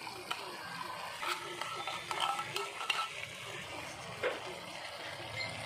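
A spatula stirring sliced sayote and corned beef in a pan over a light sizzle, with a few sharp knocks of the spatula against the pan.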